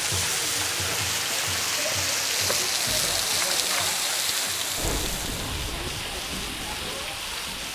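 Water falling from a cliff overhang in a shower of drops onto rock and a shallow pool, a steady patter like heavy rain, with some low rumbling underneath.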